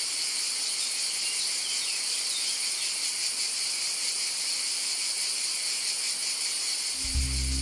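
Steady, high-pitched insect chorus, a continuous shrill buzz without pauses. A low musical note comes in near the end.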